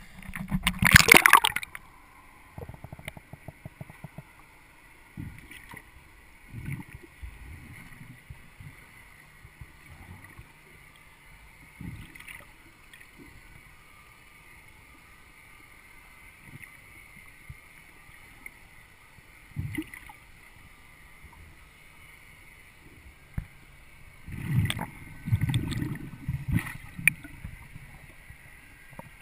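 A camera plunging underwater with a splash about a second in, then a swimmer's movements heard underwater through the camera housing: scattered muffled low knocks and gurgles over a faint steady high tone, with a louder run of low rumbling thumps near the end.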